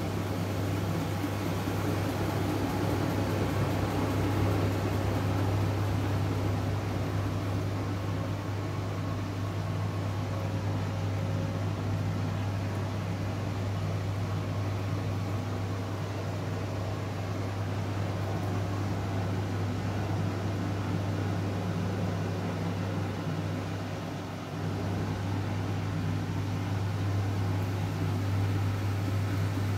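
Front-loading washing machine in its wash cycle: a steady low motor hum with water swishing as the drum turns the laundry. Late on the sound eases off for a moment, then picks up again.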